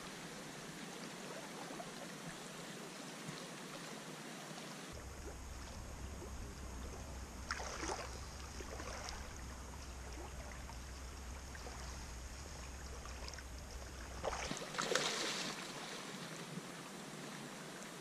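River current running steadily past, with two short bursts of splashing in the shallows, about eight seconds in and again near fifteen seconds.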